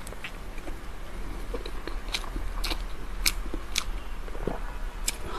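Wet biting and chewing of sheep brain wrapped in intestine, with sharp mouth clicks and smacks at irregular intervals.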